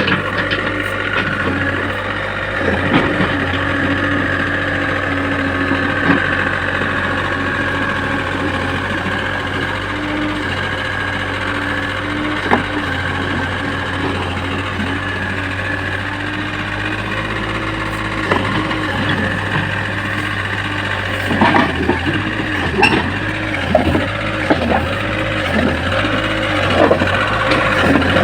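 JCB excavator's diesel engine running steadily under load. From about two-thirds of the way through comes a series of irregular knocks and clunks.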